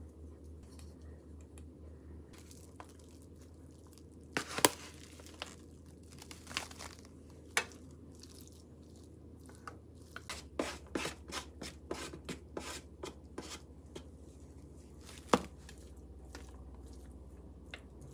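Wooden chopsticks clicking and tapping against plastic meat trays and containers as raw sliced pork and minced meat are moved across, with light crinkling of the trays. The two sharpest knocks come about four and a half seconds in and again about fifteen seconds in, and there is a run of quick taps in between.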